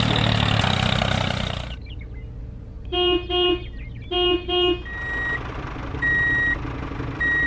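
Truck engine running, cutting off about two seconds in; then two double honks of a vehicle horn, followed by a reversing alarm beeping about once a second.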